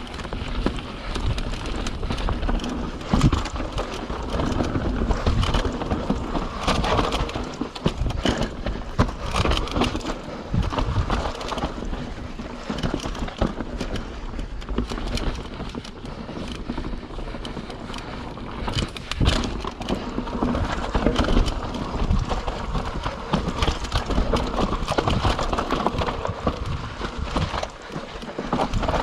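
YT Capra 29 mountain bike riding down a dirt trail: continuous tyre noise on dirt and rock, with frequent knocks and rattles from the bike over bumps.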